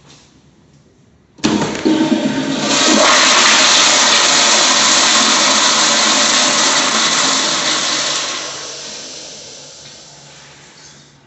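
Commercial flushometer valve flushing a public-restroom fixture. A sudden loud rush of water comes in about a second and a half in, holds for several seconds, then tapers off as the valve closes and the bowl refills.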